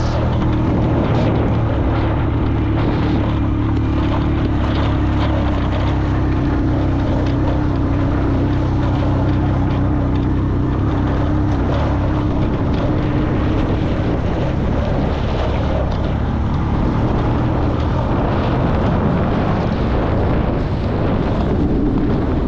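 A vehicle on the move: a steady engine hum under continuous road and wind noise.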